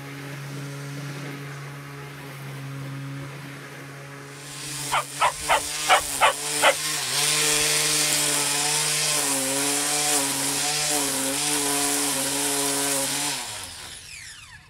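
A battery electric lawn mower's motor runs with a steady hum. About four seconds in, a cordless electric string trimmer takes over: six quick sharp ticks, then a loud, steady whine with a wavering pitch as it cuts grass, winding down with a falling pitch near the end.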